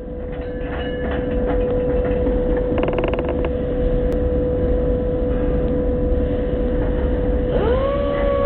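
A plastic crate rolling over the steel rollers of a gravity roller conveyor, with short quick rattles of the rollers, over a steady low rumble and a steady hum. Near the end a tone rises and then holds.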